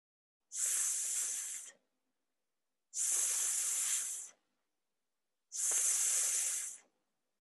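A person saying the /s/ sound three times, each a sustained hiss of a little over a second, with short pauses between.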